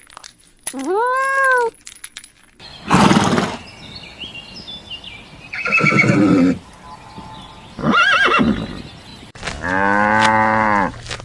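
A run of separate farm-animal calls: a cat's meow about a second in, then a horse's calls, a noisy snort-like burst followed by two shorter calls, and near the end a long low cow's moo.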